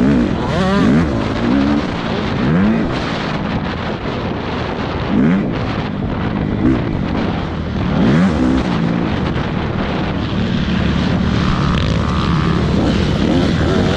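Motocross dirt bike engines racing, revving up and dropping back again and again, with several rising and falling sweeps in pitch.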